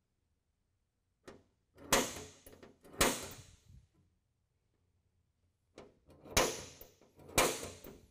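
Sharp metallic snaps of a punch striking the steel floor of a pickup bed to mark drill holes, the bed ringing briefly after each. There are two groups of strikes: a light tap and then two hard ones around two to three seconds in, and the same again around six to seven and a half seconds in.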